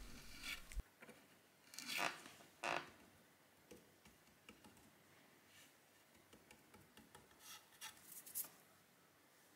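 Faint scraping of a small metal blade over wood filler on a wooden drawer front as the excess is scraped off: two short strokes about two seconds in, then fainter light scratches and ticks.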